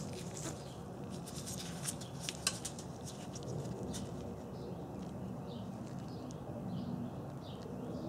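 Small clicks and rustling as wires are handled and a wire stripper is brought to them, with two sharper clicks about two seconds in, over steady low background noise.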